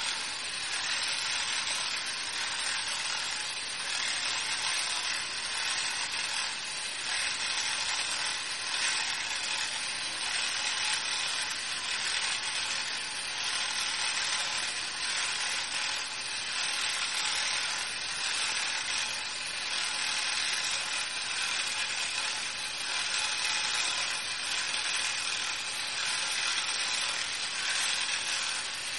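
Small electric gear motor and 3D-printed plastic gear train of a walking robot running steadily as its legs step along.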